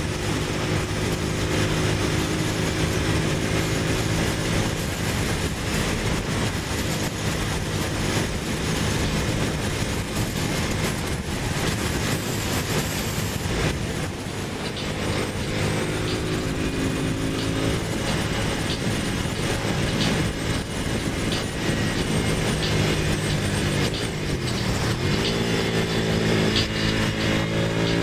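Ducati motorcycle's twin-cylinder engine running steadily at freeway speed under a rush of wind. Near the end its pitch dips, then rises again as the revs change.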